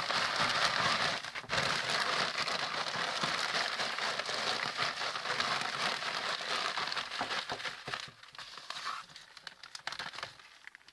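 Aspen shavings being poured out of a crinkling bag into a vivarium, a dense rustling patter that tails off after about eight seconds as the bag empties.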